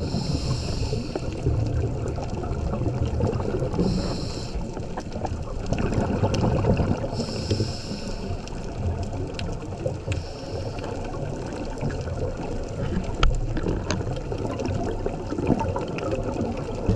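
Underwater ambience on a coral reef: steady low rumbling water movement with scattered sharp clicks, and a short high hiss about every three to four seconds in the first part.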